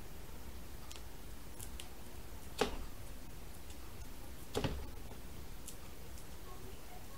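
Fingernails picking and scratching at the stuck end of a roll of duct tape, trying to lift it: faint scattered ticks with two sharper clicks about two seconds apart.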